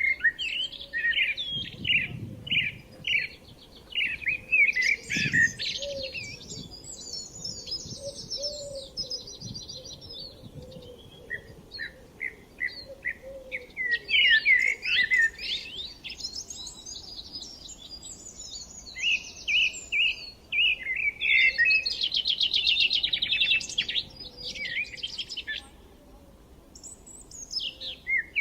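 Several songbirds singing over one another: runs of quick, sweeping chirps and fast buzzy trills in phrases, with short lulls between them.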